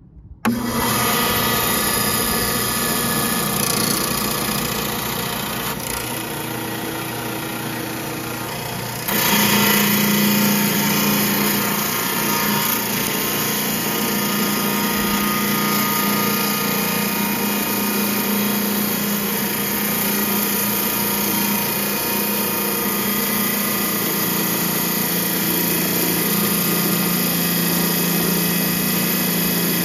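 Hi-Tech Diamond lapidary slab saw switched on: its motor and diamond blade start abruptly about half a second in and run with a steady hum. The hum grows louder about nine seconds in.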